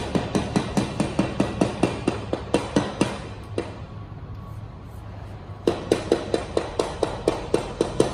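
A thin steel rod tapped repeatedly on a bare concrete floor, sharp ringing taps about four or five a second, in two runs with a pause of about two seconds between.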